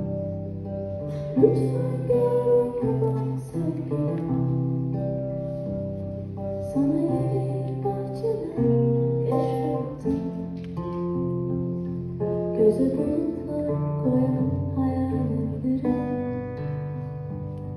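A woman singing live into a microphone over a band, with guitar accompaniment and sustained low bass notes that change every second or so.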